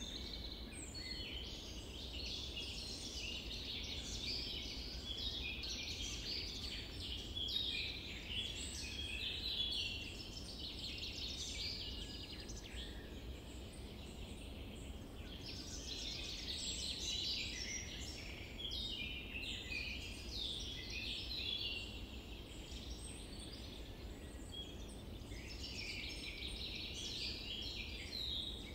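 Birdsong chorus: many small birds chirping and twittering continuously, over a steady low rumble.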